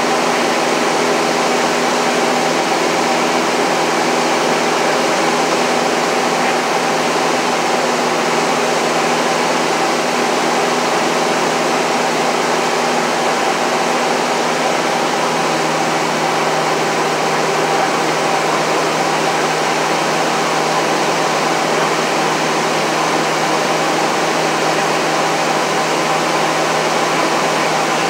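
Engine and propeller drone of a light piston aircraft in flight, heard inside the cabin: a steady loud rumble with several steady tones in it, the tone shifting slightly about halfway through.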